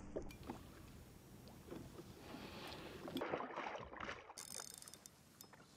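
Quiet water lapping and splashing, with a hooked sea trout splashing at the surface around the middle.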